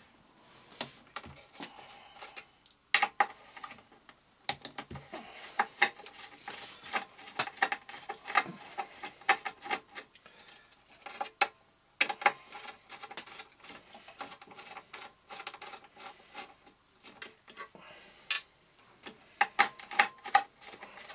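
Small screws being undone with a screwdriver and a circuit board being handled: irregular light clicks, taps and scrapes of metal and plastic, with clusters of sharper knocks now and then.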